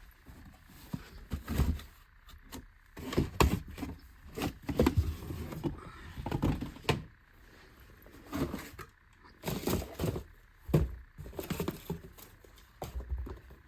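A series of irregular knocks and thuds, with rustling between them, of objects being handled and set down.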